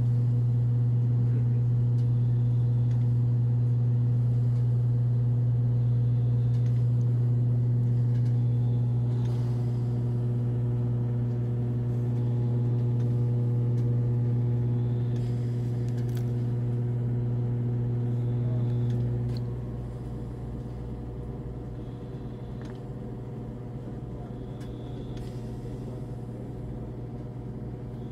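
Steady low machine hum from hospital room equipment, dropping noticeably quieter about two-thirds of the way through.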